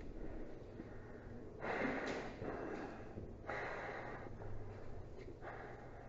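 A person breathing heavily close to the microphone, three audible exhales about two seconds apart.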